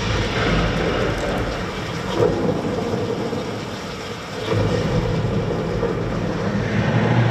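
Rain and rolling thunder: a dense, steady wash of rain with a low rumble that swells again about four and a half seconds in.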